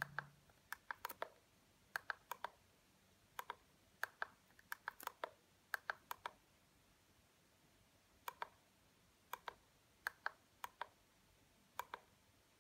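Small plastic push buttons on a Meditech SpirOx handheld spirometer clicking as its menus are scrolled: about twenty short, sharp clicks, singly and in quick runs of two or three, with a pause of about two seconds near the middle.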